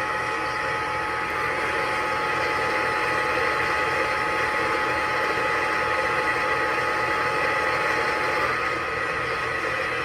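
Radio receiver hiss and static with two faint steady whistle tones, the lower one stopping about eight and a half seconds in.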